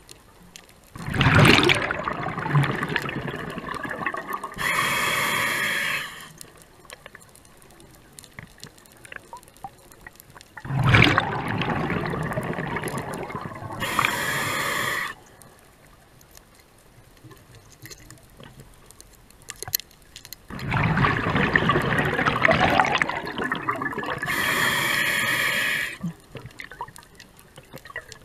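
Scuba diver breathing through a regulator underwater: three breaths, each a rush of exhaled bubbles lasting about three seconds, followed by a shorter hiss of the inhale, with pauses of several seconds between breaths.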